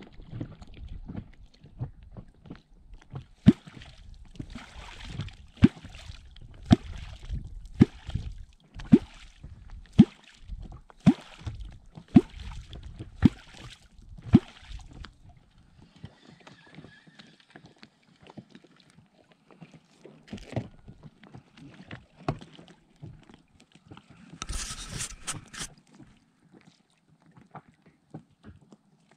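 Catfish clonk (kwok) struck into the river surface about once a second, around eleven regular strokes, each with a short pitched plop. This call is used to draw wels catfish up from the bottom. About 25 seconds in comes a brief loud rustle.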